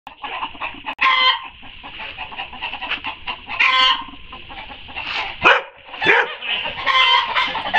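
Chickens clucking, a busy run of short overlapping calls with a few louder squawks.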